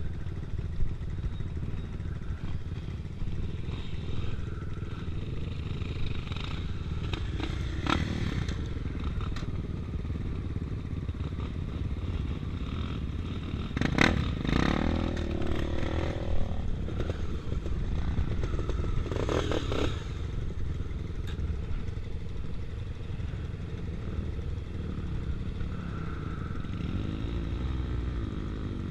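Enduro motorcycles running over a steady low rumble, with a few louder engine passes, the loudest about halfway through.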